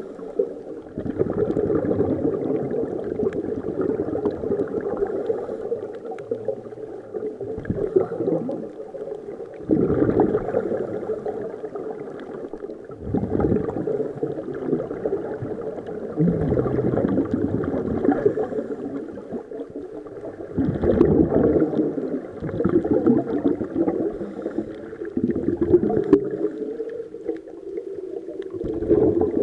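Scuba divers breathing through regulators underwater: exhaled air bubbling out in a burst every few seconds, with quieter spells of inhaling between.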